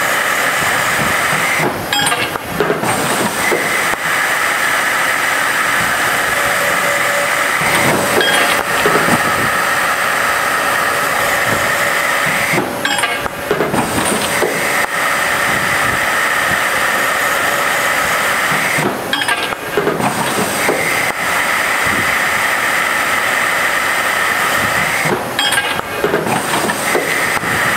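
Haven Model 922 tube end finisher running: a steady whine and hiss from the cutting heads removing metal from the tube ends. About every six seconds the sound breaks into a short clinking clatter as the next tube cycles through, five times in all.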